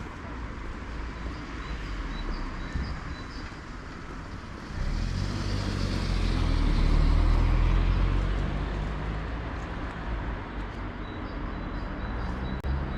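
Street traffic noise with a motor vehicle passing close: its engine rumble swells from about five seconds in, is loudest around seven seconds, then fades away.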